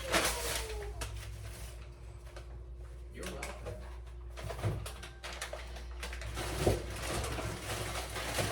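Grocery bags and packaging rustling and items being knocked about while groceries are put away, with a sharper knock about two thirds of the way through, over a faint steady hum.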